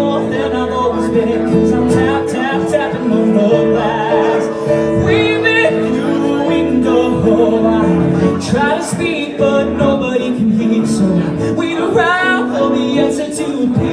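A man singing a song with live grand piano accompaniment, his voice carried on long notes with a wavering vibrato over sustained piano chords.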